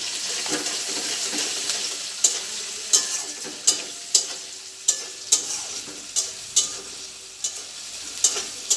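Chopped onion sizzling in hot oil in a kadai while it is stirred, with sharp scrapes of the spatula against the pan coming about every half second from about two seconds in.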